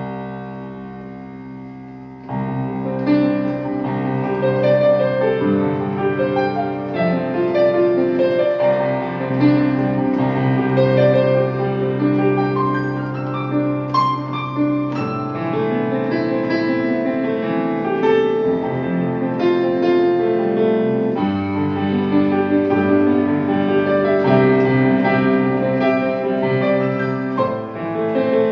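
Sampled piano played from a MIDI keyboard controller, the sound produced by software on a computer. One chord rings at first. From about two seconds in, slow held chords carry a melody above them.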